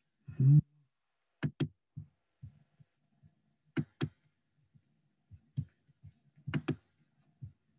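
A short hummed voice sound at the very start, then sharp clicks in close pairs three times, with a few softer single clicks between: a computer mouse being clicked.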